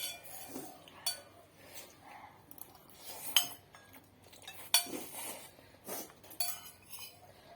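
Eating utensils clinking and scraping against a bowl of instant noodles: scattered sharp clicks, the loudest two a little past the middle.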